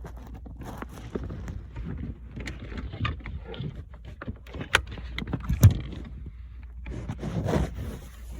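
Handling noise in a car cabin as the camera is set down and a power-adapter plug is fitted into the cigarette-lighter socket: scattered clicks, rustles and knocks, the sharpest about five and a half seconds in, over a steady low rumble.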